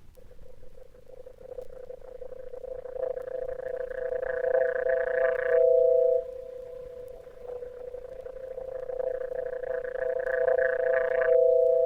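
Electronic sound piece: two steady held tones with a brighter, buzzing layer that swells over about five seconds and cuts off abruptly, twice.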